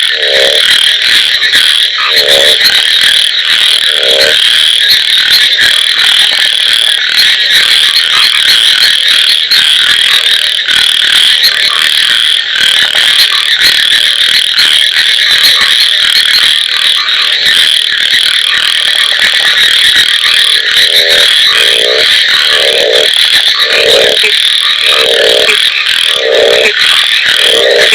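A frog chorus: a dense, steady high-pitched trilling continues throughout, while a deeper frog croaks in short repeated pulses a few times at the start and again about once a second through the last quarter.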